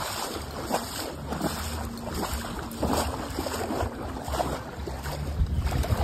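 Sea water sloshing and surf around someone wading, with wind rumbling on the phone's microphone in uneven gusts.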